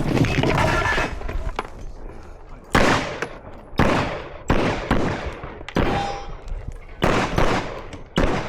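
A string of gunshots at a brisk pace, spaced about half a second to a second apart, each with a short ringing echo.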